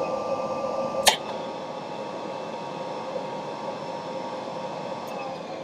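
Industrial robot arm running: a steady machine hum with several high whining tones, and one sharp click about a second in.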